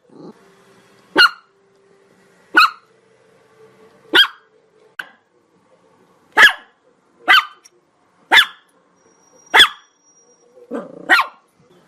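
Chihuahua barking: about eight sharp, high-pitched yaps at uneven intervals of a second or so.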